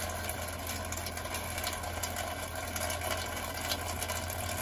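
Steady rain falling, with scattered small drip ticks, over a constant low mechanical hum.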